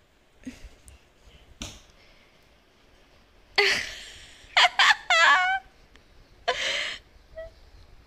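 Two soft knocks, then, from about three and a half seconds in, short bursts of high-pitched laughter and squealing with a wavering pitch.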